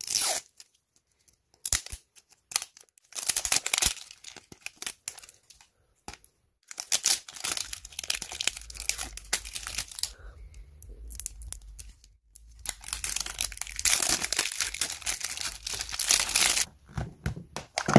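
The wrapper of a Zuru 5 Surprise Toy Mini Brands capsule ball being torn and peeled off by hand. It tears and crinkles in several bouts, with short pauses between them.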